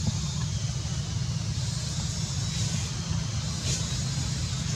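A steady low rumble with an even hiss above it, with a few faint brief high sounds near the end.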